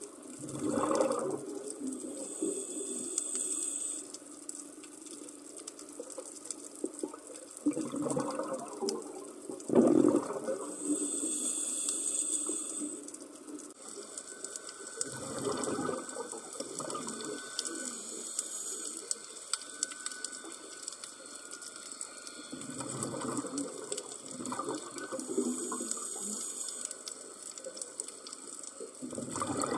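Scuba diver breathing through a regulator, heard underwater: a burst of bubbling exhalation about every seven seconds, with a thin high hiss of inhalation between some of them.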